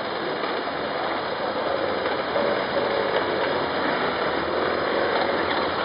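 Several police motorcycles running at low speed as they pull away together, a dense engine noise with a mechanical clatter and engine notes rising and falling.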